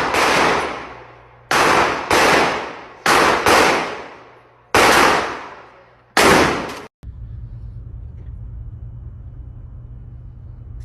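Shotgun fired six times in quick succession, some shots in close pairs, each blast ringing out and fading over about a second. After the last one the sound cuts off abruptly to a steady low rumble.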